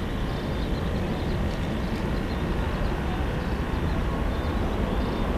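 Airbus A380-841 airliner's four Rolls-Royce Trent 970 turbofans at takeoff thrust during the takeoff roll and rotation. The jet noise is steady and deep, growing slowly louder.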